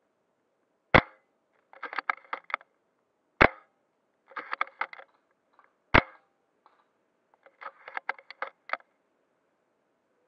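Airsoft gun firing single shots: a sharp crack about every two and a half seconds, four in all, the last right at the end. Between the shots come clusters of lighter, quick clicks and rattles.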